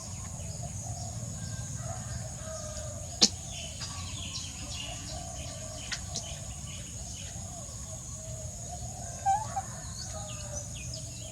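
Outdoor ambience of birds calling over a steady high-pitched hum, with a sharp click about three seconds in.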